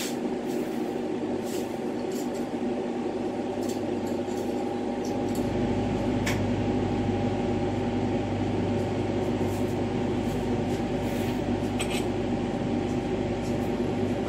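Steady hum in a lampworking studio: the bench torch burning and machinery running, with several held tones. A deeper hum joins about five seconds in, and a few faint clicks of glass come through.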